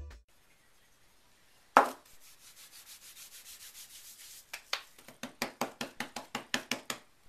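Hands rubbing, then patting and pressing soft, crumbly bubble-bar dough flat on paper: a quick run of soft pats, about five a second, through the last few seconds. A single loud knock comes about two seconds in.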